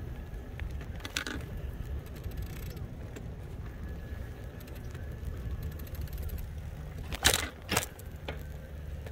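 Ride noise from a moving e-bike: a steady low rumble of wind and motion on the microphone. About seven seconds in come two short, sharp noises about half a second apart, the first the loudest sound here.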